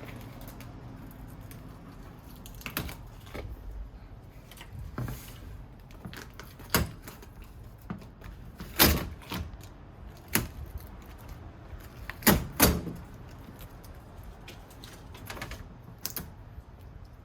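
Irregular clicks and clacks of an iMac's metal and plastic parts and tools being handled and set down during disassembly. The loudest knock comes about halfway through, followed by a quick pair of knocks a few seconds later.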